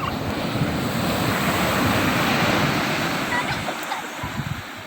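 Ocean surf: a wave breaking and washing up the beach, swelling to its loudest about two seconds in and then fading.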